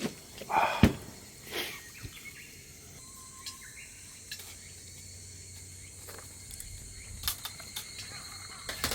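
Outdoor ambience with a faint steady high insect-like tone and scattered small clicks and knocks, one louder knock about a second in.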